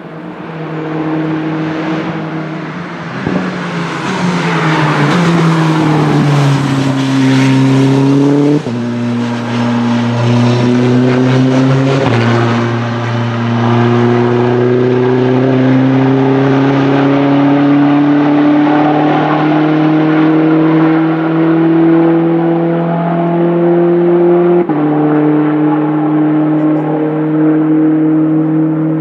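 Race car engine growing louder as it approaches, falling in pitch as it brakes for a corner, then accelerating hard with the pitch climbing and dropping sharply at several upshifts.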